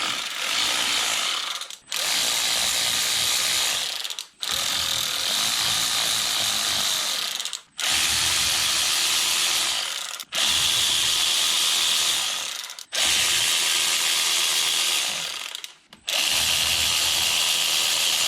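Power ratchet running in repeated runs of two to three seconds, with short breaks between, as it backs out the hub cap bolts on a front wheel hub.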